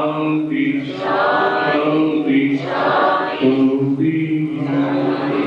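A group of voices chanting a devotional mantra together in long held notes that step between pitches about once a second.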